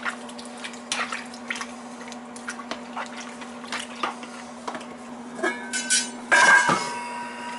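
A spoon clicking and scraping against a plastic mixing bowl as pineapple chunks in syrup are stirred. About six seconds in, a metal pot lid clatters and gives one loud clang that keeps ringing, as it is lifted off a stainless steel stockpot. A steady low hum runs underneath.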